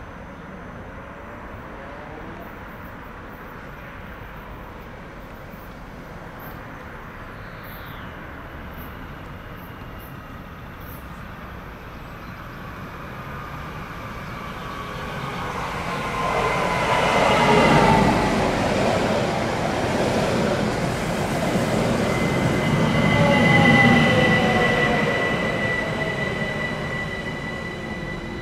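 ÖBB Talent electric multiple unit approaching and braking into the station, growing louder from about halfway through. Its motor whine falls in pitch as it slows, and a steady high brake squeal comes in over the last few seconds as it draws up at the platform.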